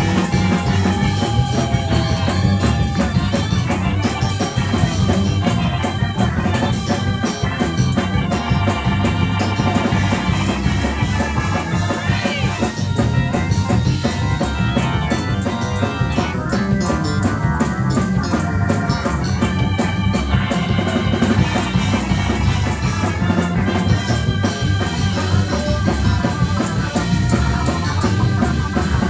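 Organ and drums playing praise music in a church service, loud and steady.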